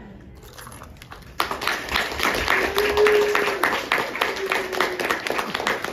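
A classroom audience of children clapping: a few scattered claps, then full applause breaking out about a second and a half in, with voices over it.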